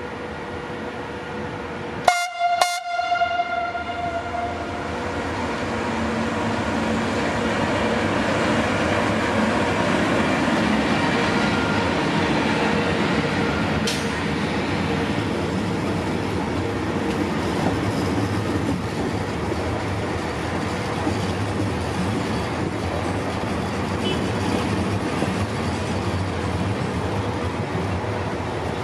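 A train gives two short horn blasts about two seconds in, then runs through the station close by, its wheels rumbling steadily on the rails, with a single sharp click about halfway through.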